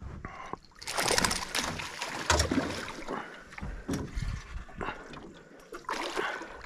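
A hooked peacock bass (tucunaré-açu) thrashing and splashing at the surface beside the boat during the fight. The splashing comes in surges, heaviest from about a second in, with more bursts near the middle and toward the end.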